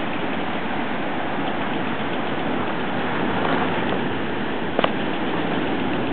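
Steady rushing background noise, with one short click a little before the end.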